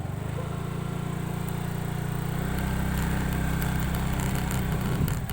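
Suzuki Skydrive Crossover scooter's single-cylinder engine running under throttle: it picks up from a slow chug into a steady drone as it starts, and grows a little louder about two seconds in.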